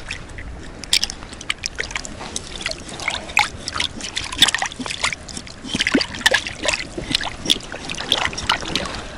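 Shallow river water splashing and dripping in many irregular small splashes as hands rinse a freshly bled pink salmon in it.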